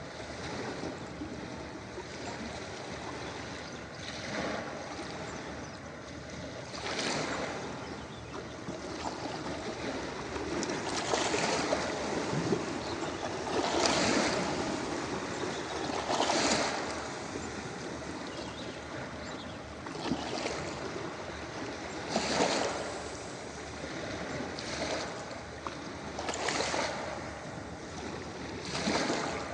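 Ocean waves breaking and washing up a beach: a steady hiss of surf with a louder wash every two to four seconds.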